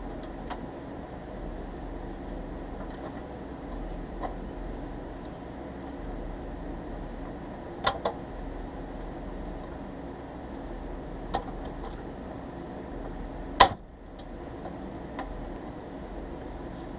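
Scattered sharp clicks and taps as small parts are fitted by hand onto a pressed-steel Tonka toy front loader, over a steady background hum. There are about six clicks, the loudest one late on.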